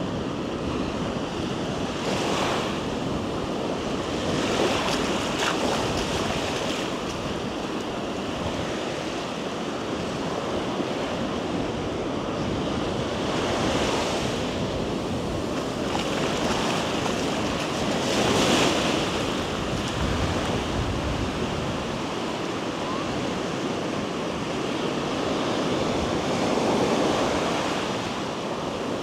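Ocean surf breaking on a sandy beach: a steady wash of waves that swells louder every few seconds as a wave breaks, with wind on the microphone.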